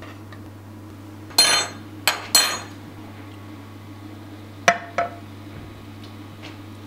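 Metal spoon clinking against a frying pan and a ceramic baking dish as cooked chicory halves are lifted across: a ringing clink about a second and a half in, two more just after two seconds, and two lighter knocks near five seconds.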